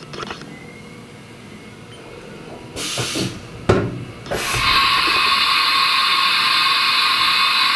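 Haas EC-300 horizontal mill's automatic tool changer swapping a tool. A short hiss and a sharp knock come about three to four seconds in, then a loud, steady hiss of air from about four and a half seconds on.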